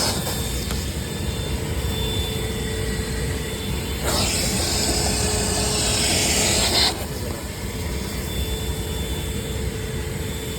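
Wet/dry shop vac motor running steadily with a constant whine, and a louder stretch of rushing suction hiss between about four and seven seconds in, as it pulls air and water from the wet duct and drain.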